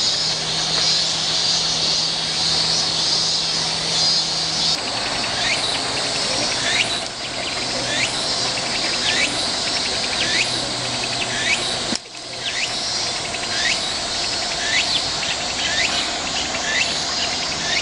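Cicadas shrilling steadily in chorus. From about five seconds in, a short sliding call repeats roughly once a second over it, with a faint low hum underneath.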